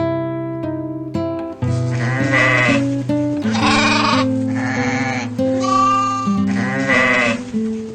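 An animal bleating about five times in a row, each call wavering, over background music with sustained notes.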